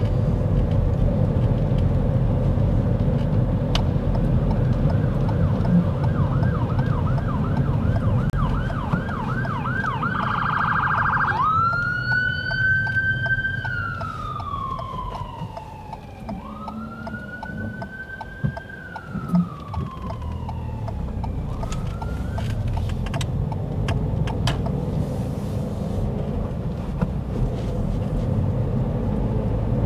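Emergency vehicle siren heard from inside a car over its steady engine and tyre noise. It sounds a fast warbling yelp about eight seconds in, then switches to two long wails that each rise quickly and fall slowly, fading out a little after twenty seconds.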